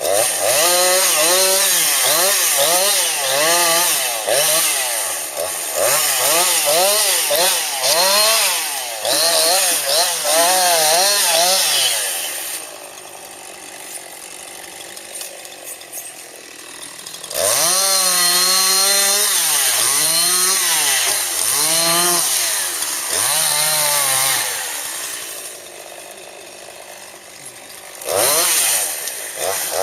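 Chainsaw cutting limbs off a felled tree, revving up and down in quick repeated cuts about once a second. Twice it drops back to a lower idle for a few seconds between runs of cuts.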